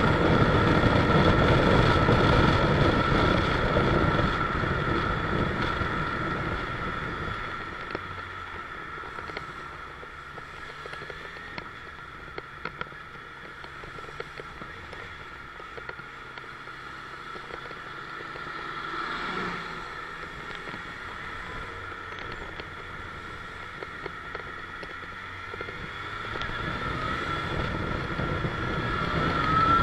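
Motorcycle on the move with wind and engine noise. The noise drops away about seven seconds in as the bike slows through queued traffic. Near the end it builds again as the bike picks up speed.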